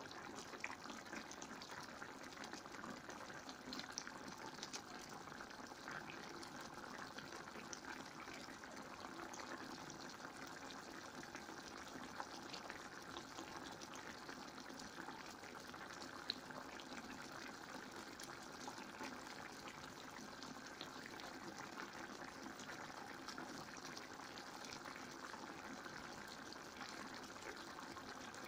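Chicken curry in coconut milk simmering in a pan: a steady, soft bubbling with scattered small pops.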